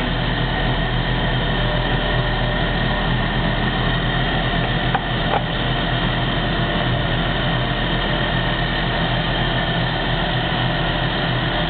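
Small lathe motor running steadily while a brass part is machined: an even mechanical hum. Two brief ticks about halfway through.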